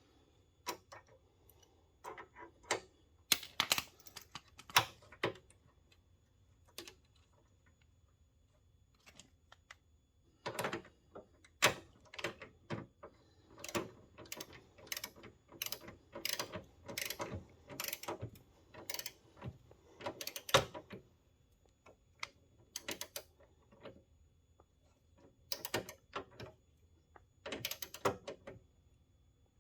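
Ratchet of a click-type torque wrench turning down a bolt: rapid clicking in bursts with pauses between, and one sharper, louder click about two-thirds of the way through.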